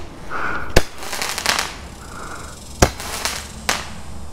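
Roman candle fireworks going off: three sharp bangs, about a second in, near three seconds and just after, with fizzing and crackling between them.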